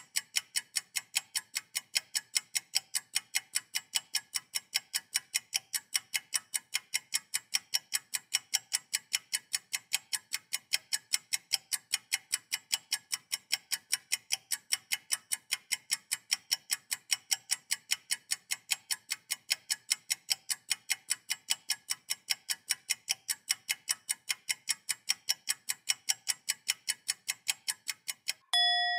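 Fast, even, clock-like ticking that runs steadily, then stops just before the end, when a single ringing bell-like tone is struck and sustains.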